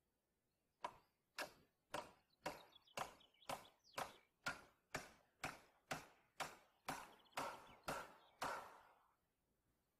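Hammer driving a nail into a wooden board overhead: about sixteen steady blows, two a second, starting about a second in and stopping near the end, the last few ringing a little longer.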